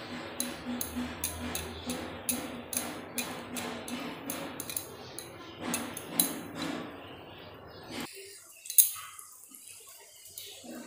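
Egg-and-onion omelette cooking on a flat tawa over a gas stove: a steady sizzle with quick light clinks, about three a second, as it is worked by hand and spatula. The sound drops away abruptly about eight seconds in, followed by one sharp clink.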